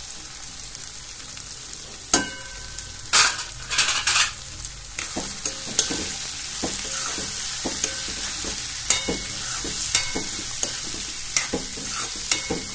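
Chopped green onions and onions sizzling in hot oil in a pan while a steel spoon stirs them, knocking and scraping against the pan about twice a second. A few louder knocks and scrapes come two to four seconds in.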